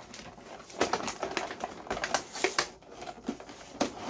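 Cardboard box and plastic packaging being handled as a toy RC truck is pulled out: irregular crinkling and rustling with sharp crackles and clicks, starting about a second in.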